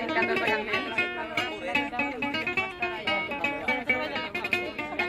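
Acoustic guitar played solo, a quick steady stream of plucked notes.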